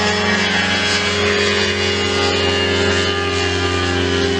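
Pioneer Flightstar II ultralight's pusher engine and propeller, loud and steady, at climb power just after takeoff.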